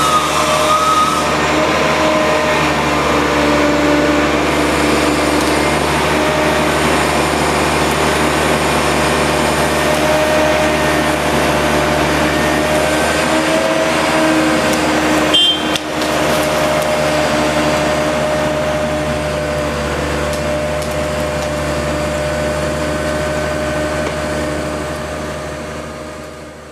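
Engine of a large crane truck running steadily, a constant mechanical drone with a slight pitch wobble. It breaks briefly about halfway through, then fades out near the end.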